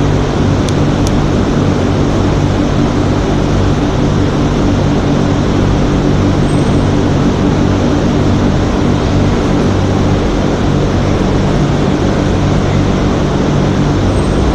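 Electric heat gun running steadily, its fan blowing with a constant hum, while it heats a wire joint to melt the solder.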